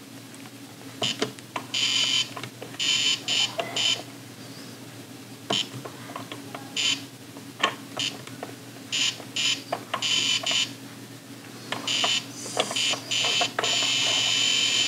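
Etch A Sketch Animator's built-in electronic beeper buzzing in short repeated bursts, the noise the toy makes as it is worked with its knobs and buttons, with small clicks between. Near the end the bursts run together into a longer continuous tone.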